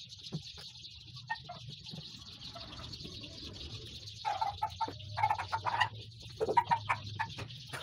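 A bird calling in the background: a run of short, repeated calls about halfway through and another shortly after, over a steady high hiss.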